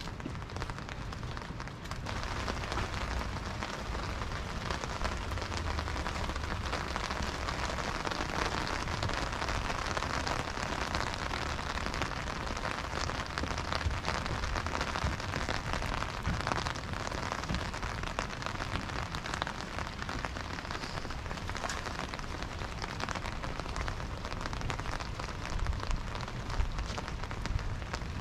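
Steady rain falling, a dense hiss of fine raindrop patter that grows a little louder about two seconds in.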